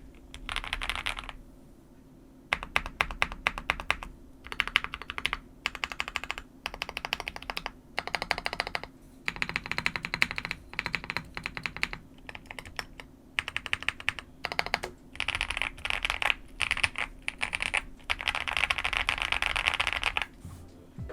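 Typing on a custom OwLab Mr. Suit TKL mechanical keyboard with lubed Boba U4T tactile switches, a POM plate, case foam and CRP Tulip keycaps. Rapid keystrokes come in runs of one to three seconds, broken by short pauses.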